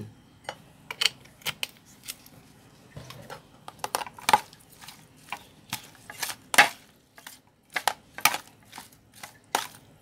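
Metal spoon clacking against a plastic food container as raw small sea fish are tossed with a chili-herb paste: irregular sharp knocks, roughly two a second.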